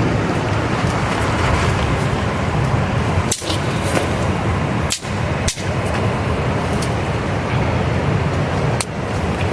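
Steady rushing noise of river rapids, with a few sharp clicks now and then.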